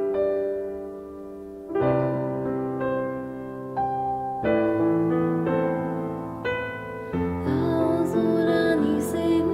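Background music: a piano playing slow sustained chords in a pop song's instrumental break, fuller near the end.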